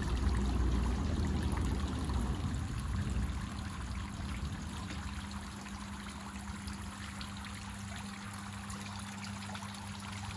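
Water trickling and splashing steadily into crayfish holding tubs and a pond, over a low steady hum. A low rumble sits under it for the first couple of seconds.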